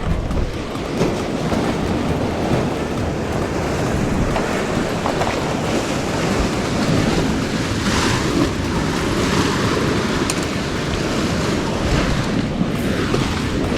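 Sea swell washing against the rocky shore, a steady rush of surf that swells louder at times, with wind rumbling on the microphone.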